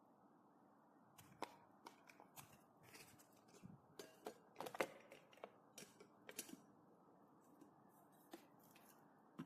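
Faint, irregular clicks and knocks, like small hard objects being handled, clustered from about a second in to near seven seconds, with one more near the end.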